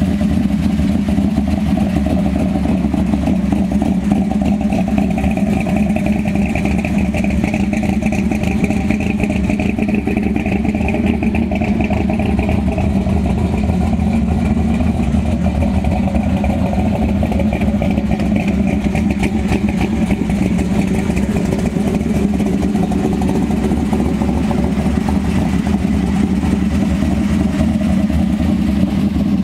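Modified 1955 Chevrolet two-door's engine idling steadily, a loud rough rumble with no revs.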